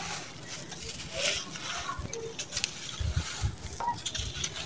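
Dry, gritty sand-cement mix with small stones crumbled in the hands and poured through the fingers: a grainy crunching and trickling with a few sharp clicks, and a run of low thumps in the second half as the handfuls are squeezed and dropped.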